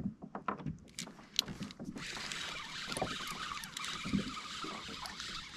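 A run of light clicks and knocks from gear on a fishing kayak, then a steady hiss that starts about two seconds in.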